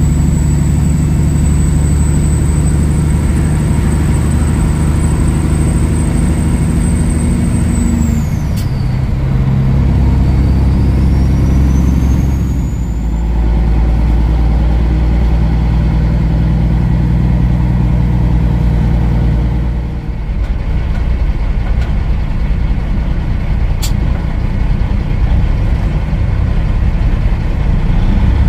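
Kenworth W900L semi truck's diesel engine running under way, its note shifting several times as the truck slows and changes gear. A high whine drops away about eight seconds in, and a single sharp click comes near the end.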